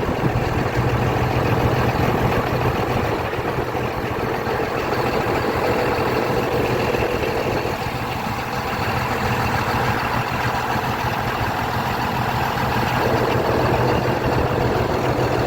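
Komatsu D155A-6 bulldozer's six-cylinder diesel engine running steadily, with a continuous low hum; its sound changes slightly for a few seconds around the middle.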